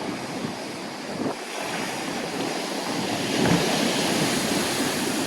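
Heavy winter storm waves breaking and surging, a continuous rush that swells to its loudest about three and a half seconds in.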